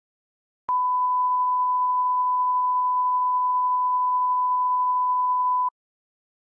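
Broadcast line-up test tone, the kind used to set audio levels before a programme: one steady pure pitch held for about five seconds. It starts with a click under a second in and cuts off suddenly.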